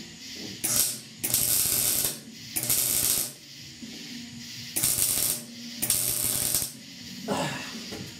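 Electric welder crackling in five short bursts of about a second each as welds are laid into a sheet-metal roof patch panel; the welder is short of heat for this joint.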